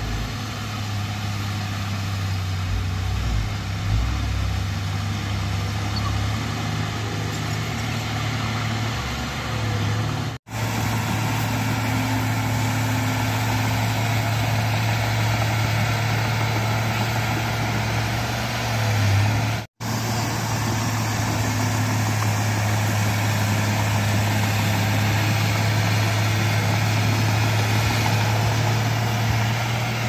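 Komatsu crawler bulldozer's diesel engine running steadily with a low drone as the dozer pushes soil with its blade. The sound drops out for an instant twice, about ten and twenty seconds in.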